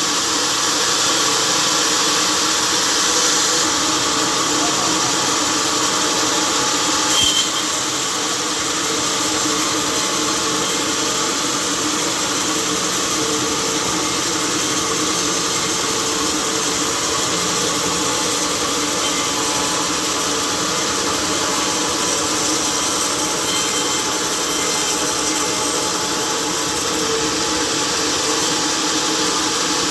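Sawmill machinery running steadily: a dense mechanical noise with a few steady hums, a short knock about seven seconds in, after which it runs a little quieter.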